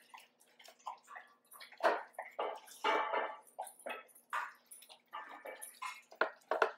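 Dogs licking and eating from stainless steel bowls: irregular wet licks and laps, cleaning the last of the food out of the bowls.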